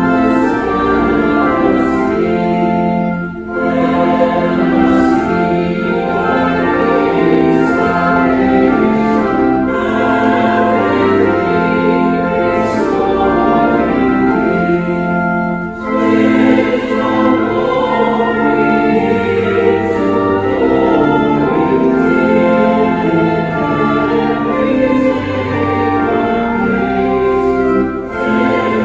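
Congregation singing a hymn with organ accompaniment: long held notes moving line by line, with short breaks between phrases about three seconds in, around the middle, and near the end.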